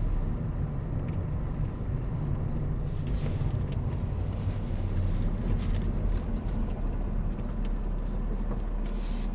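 Steady low engine and tyre rumble of a car driving, heard from inside the cabin, with a few faint light clinks.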